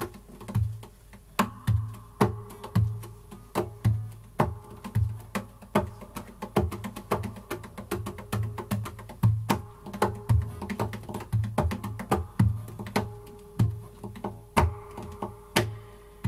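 Acoustic guitar played instrumentally with sharp, percussive strokes at about two a second, each with a low thump under the ringing notes.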